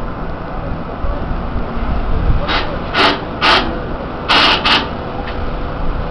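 Steady drone of engines and machinery with a faint steady hum, broken in the middle by five short hissing noises close together.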